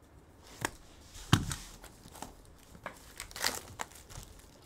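A cardboard trading-card box being opened and handled, with scattered crinkling and tearing of plastic wrapping. A thump about a second and a half in is the loudest sound, and there is a longer burst of crinkling a little after three seconds.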